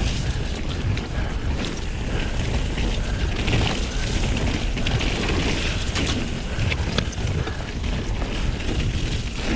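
Wind buffeting the microphone over the rush of mountain-bike tyres rolling on a dirt trail, with frequent small knocks and rattles from the bike as it rides over the ground.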